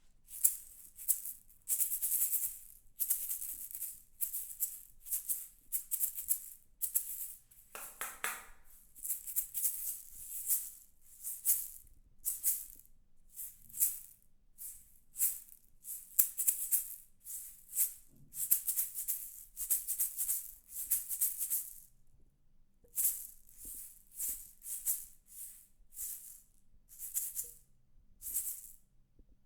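A hand rattle shaken in irregular bursts of quick shakes, some of them running on for a second or two, with a short pause about 22 seconds in.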